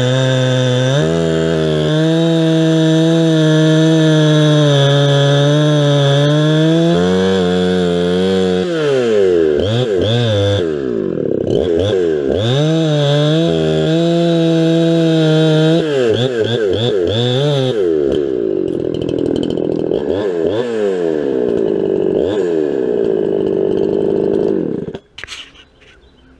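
Ported Farmertec Huztl 372XP-kit two-stroke chainsaw cutting hard seasoned oak on a 20-inch full-compression, hand-filed chain. It holds steady revs under load for about eight seconds, then revs up and down repeatedly, and cuts off abruptly near the end.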